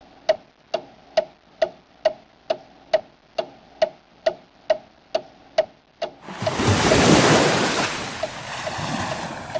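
Sharp, even ticking, a little over two ticks a second; about six seconds in, a loud rush of noise swells up and slowly fades while the ticks go on faintly beneath it.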